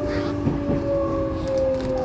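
Tobu 20400 series train heard from inside a motor car. The Toyo GTO-VVVF inverter and traction motors whine in several steady tones that slowly fall in pitch as the train slows, over the rumble of wheels on rail.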